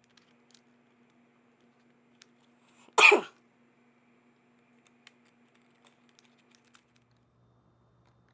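A man coughs once, short and sharp, about three seconds in. Faint light clicks of handling come before and after it.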